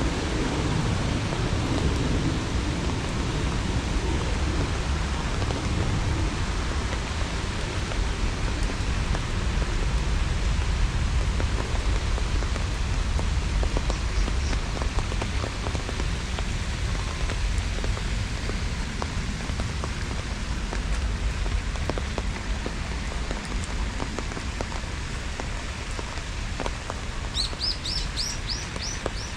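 Steady rain falling, with the tail of a low thunder rumble dying away in the first couple of seconds. Near the end a bird gives a quick run of about six short, high chirps.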